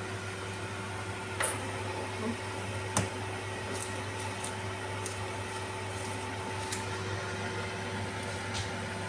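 A steady low mechanical hum, with a few light taps and clicks about 1.5 and 3 seconds in and fainter ones later.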